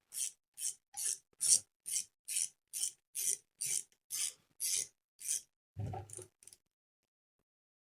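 Ratchet wrench clicking through a series of short, even swings, about two a second, as a crankcase bolt is turned in; it stops about six seconds in.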